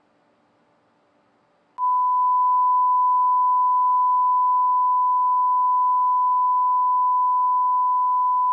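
A single steady beep-like tone coming out of the Arinst SSA TG R3 spectrum analyzer's FM demodulator, tuned to a wideband FM signal. It is silent at first with the squelch shut, and the tone cuts in suddenly about two seconds in, once the squelch threshold is lowered. A faint low hum sits under the tone.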